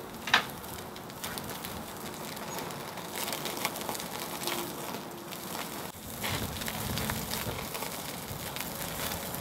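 Beef steak crackling and sizzling over the glowing charcoal of a small tabletop charcoal grill as the pieces are turned with metal tongs, with a sharp click of the tongs on the wire grill about half a second in.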